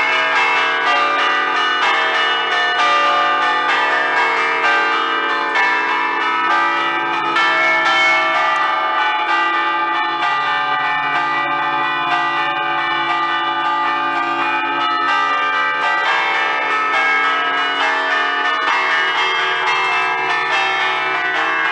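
A five-bell Ambrosian peal in D, cast by Giorgio Pruneri in 1875, chimed by hand in a festive allegrezza. The clappers are pulled on short cords to strike the hanging bells in quick, overlapping strokes, heard close up in the belfry.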